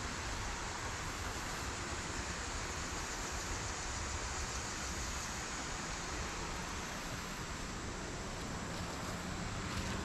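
Steady rushing of creek water tumbling over a rocky riffle, an even noise with no distinct events.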